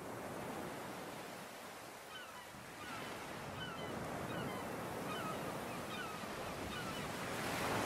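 Sea surf washing onto a shore, a steady rush of waves that swells as a wave breaks near the end. Faint short chirps repeat through the middle.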